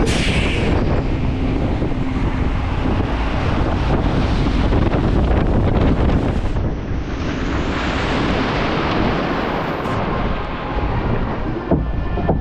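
Wind rushing over the microphone as a log flume boat plunges down its drop, then the splashdown about halfway through, with water spraying over the boat. It then rides on through the water channel.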